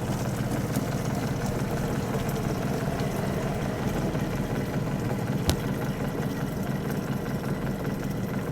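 Coin-operated reverse-osmosis drinking-water vending machine dispensing: its pump hums steadily while water runs into a large plastic bottle, with a single sharp click about halfway through.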